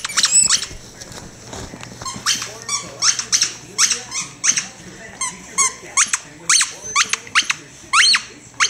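Plush squeaky toy squeaking over and over as a dog chews it: short, high squeaks in an irregular string, some bending up or down in pitch, with a brief pause about a second in.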